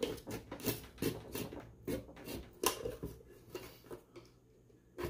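Irregular small clicks and scrapes of a hand tool working at a subwoofer's voice-coil former and spider, several a second, dying down about four seconds in.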